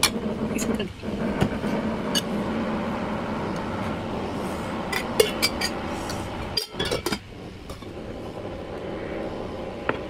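Metal clinks of a stainless-steel pot and spoons against a ceramic soup bowl, with a quick cluster of them about five to seven seconds in, over a steady background rumble.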